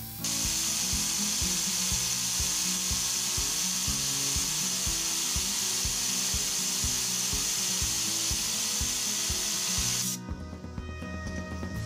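Compressed air from a blow gun hissing steadily as it is blown onto a brass gyroscope's flywheel, spinning it up. The air cuts off suddenly about ten seconds in.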